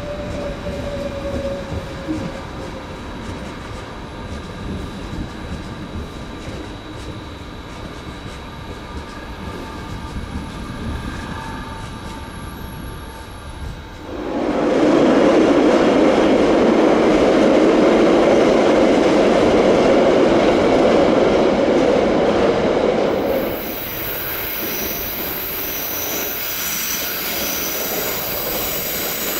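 SBB double-deck intercity train pulling away and slowly receding, with a faint falling squeal in the first few seconds. About fourteen seconds in, a much louder steady rushing noise rises and then cuts off abruptly. In the last few seconds an SBB FV-Dosto double-deck electric train approaches, with a steady hum and faint high whine.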